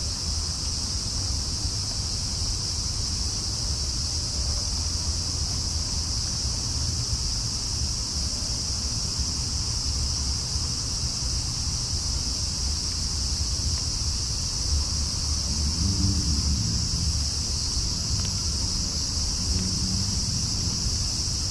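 Steady chorus of night insects, crickets, a continuous high shrill with no change in level, over a low rumble.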